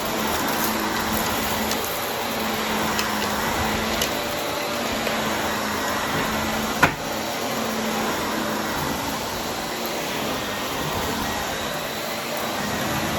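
Vacuum cleaner running steadily with its brushroll on, a drone with a faint low hum, and one sharp click about seven seconds in.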